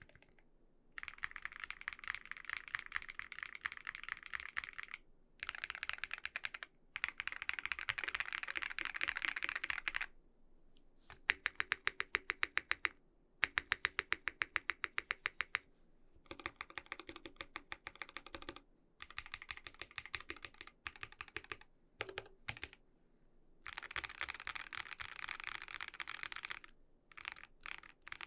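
Typing on a KBD8X MKII mechanical keyboard with a full brass plate, Krytox 205g0-lubed NovelKeys Cream switches, lubed Durock stabilizers and GMK keycaps, modifier keys included. Runs of fast keystrokes are broken by short pauses, with a stretch of evenly spaced single key presses about halfway through.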